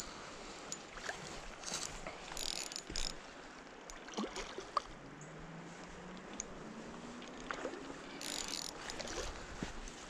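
Steady hiss of creek water and wind, with scattered clicks and a few brief rustles from a spinning reel being cranked and dry grass underfoot as a hooked trout is reeled in. A faint low hum rises slowly in pitch from about halfway through.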